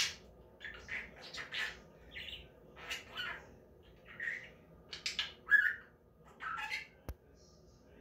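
Budgerigar chattering at its mirror reflection in a string of short, irregular chirps and squawks, with a single sharp click about seven seconds in.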